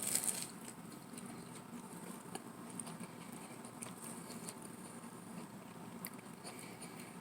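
A person chewing a mouthful of crisp, flaky pie crust: a short crackle right at the start, then quiet, scattered chewing clicks.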